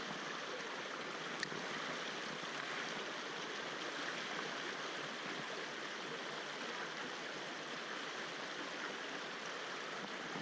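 Mountain stream water rushing steadily, with one brief click about a second and a half in.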